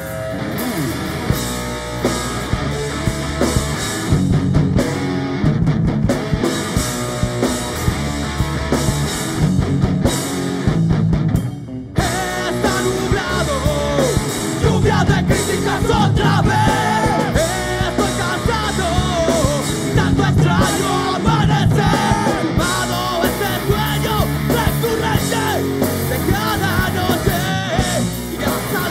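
Rock band playing live, with bass guitar and drums keeping a steady beat. After a brief break about twelve seconds in, a man starts singing over the band.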